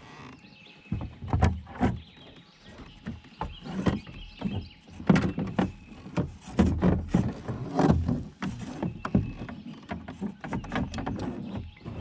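Irregular knocks, bumps and rustles of handling in a kayak while a caught bass is held and worked in the angler's lap, the blows carrying through the hull.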